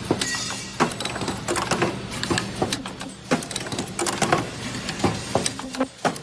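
Automatic ultrasonic face-mask ear-loop welding machine running: its pneumatic actuators and mechanism clack and click irregularly, several times a second, over a steady machine hum.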